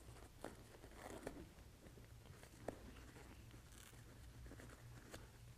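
Near silence with a few faint rustles and light clicks as the helmet's fabric ear cover is handled and pulled back over the speaker.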